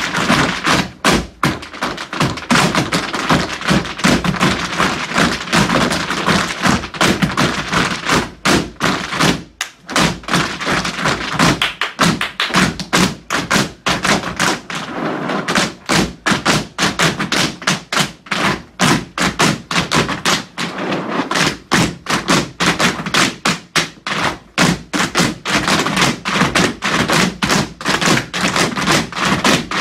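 A group of tap dancers striking a wooden floor in their tap shoes, mostly together: a continuous run of sharp taps and heavier stamps with no music, breaking off briefly about nine and a half seconds in.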